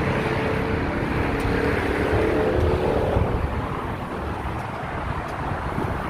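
Passing vehicle over steady traffic rumble: an engine's pitch rises, holds, and fades away about three seconds in.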